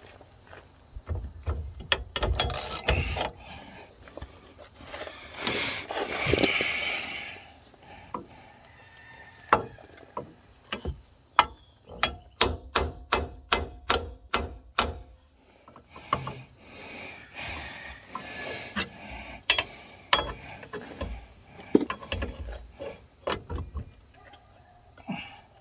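Hand socket ratchet clicking as it drives a bolt into a steel leaf spring hanger bracket, with a quick run of clicks, about four a second, midway through. Scraping and rubbing of the parts comes before it.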